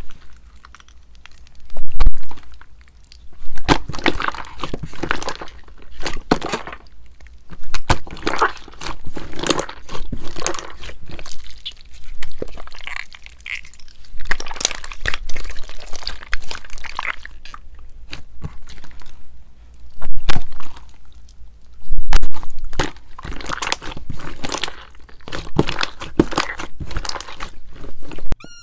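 Clear jelly slime mixed with small foam beads being pressed, folded and stretched by hand, making dense sticky clicks, crackles and crunches in uneven groups, with a few louder squelching presses.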